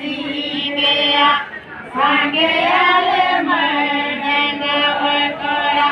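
A group of voices singing together in long, wavering held notes, with a brief pause about a second and a half in.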